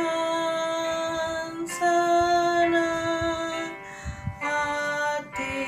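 A woman singing a slow Indonesian hymn in long held notes, with instrumental accompaniment; the sound dips briefly a little after the middle before the next line.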